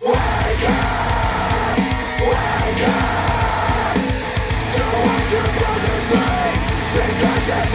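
A loud, hard-driving rock track with a steady beat starts abruptly, played back through KEF LS50 Meta bookshelf speakers driven by a NAD C 338 integrated amplifier.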